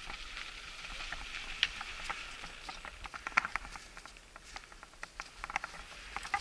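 Mountain bike rolling over packed snow: irregular crunching and crackling from the tyres on the snow, with sharp clicks and rattles from the bike, loudest about a third of a second into the fourth second.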